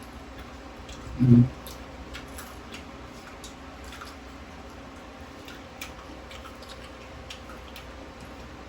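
People chewing crispy pata (deep-fried pork knuckle) close to the microphone, with scattered small clicks of mouth and food sounds. A short low 'mm' comes about a second in.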